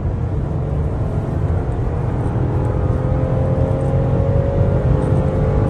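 Toyota Camry's 3.5-litre V6 engine pulling under hard acceleration at highway speed over steady road rumble, its pitch climbing slowly.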